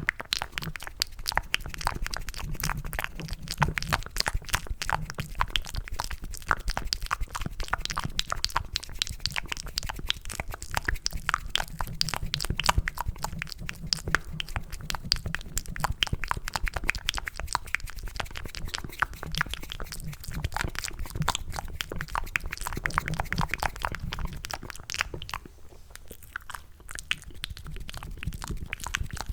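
Wet, sticky mouth sounds cupped close to an ASMR microphone: a dense run of rapid clicks and smacks mimicking chewing mac and cheese, easing off briefly near the end.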